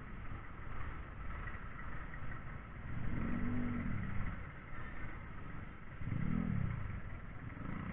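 A motorcycle riding in slow city traffic: engine and road noise, with the engine rising and falling in pitch twice, about three and six seconds in.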